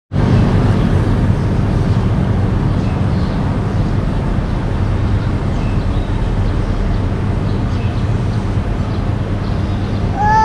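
Steady low rumble of outdoor street and traffic ambience. A cat's meow begins right at the end.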